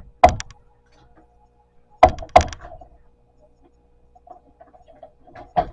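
Wooden flat-pack furniture parts knocking and clunking as they are handled and fitted together. There is a sharp knock just after the start and two more around two seconds in, then a run of lighter clicks and knocks that gets busier near the end.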